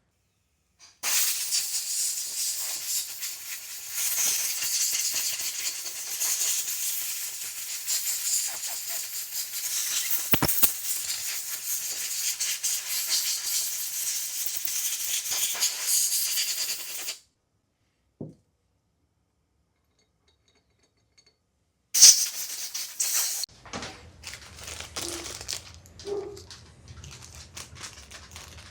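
Compressed air from a workshop air compressor's blow nozzle, blowing the dirt off a two-stroke motocross engine's power valve actuator assembly: a long hiss of about sixteen seconds that wavers as the nozzle moves, then a second short blast about twenty-two seconds in. Light clicking of parts being handled follows near the end.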